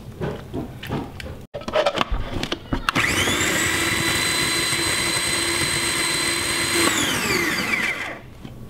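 Small electric food processor blending roasted tomatoes, onions and peppers into salsa: its motor whine rises quickly to a steady pitch, runs for about four seconds, then falls away as it spins down. Before it starts, a few clunks as the tomatoes and lid go into the plastic bowl.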